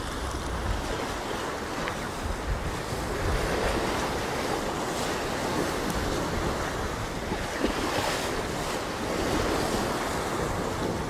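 Sea waves washing against shore rocks, with wind buffeting the microphone.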